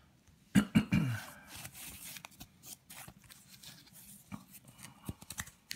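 Paper and cardboard packaging being handled: rustling, with small clicks and scrapes. A brief cluster of louder strokes comes about half a second in, with a short vocal murmur.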